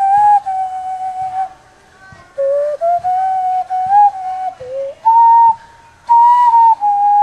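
Hand whistling: a person blowing into cupped hands, playing a flute-like melody of held, clear notes that step up and down in pitch, broken by two brief pauses.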